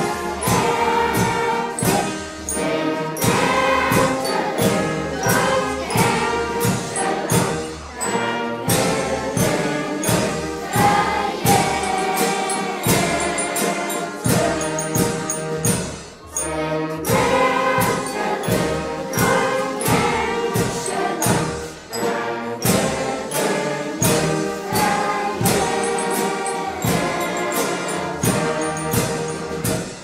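Recorded music: a choir singing a traditional St. Martin's song in Lower Rhine dialect over instrumental accompaniment with a steady beat.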